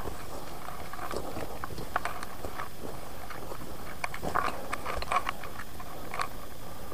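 Irregular rustling and crackling of footsteps on a forest trail, with scattered small snaps and brushing sounds.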